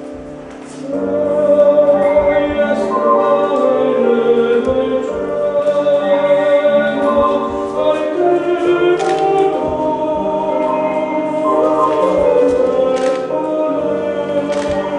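Choral music: several voices holding long, overlapping notes, swelling up sharply about a second in and staying full.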